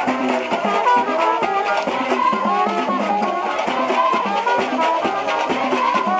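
Haitian rara band playing: short, repeated horn notes over drums and percussion in a steady rhythm.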